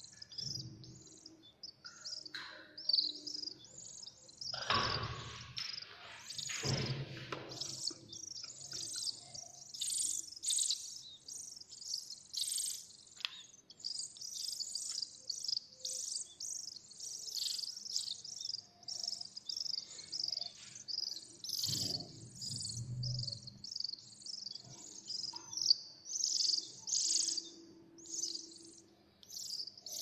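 Nestling birds begging for food with rapid, high chirps repeated over and over while being hand-fed. Brief rustling sounds come about five and seven seconds in and again near the end.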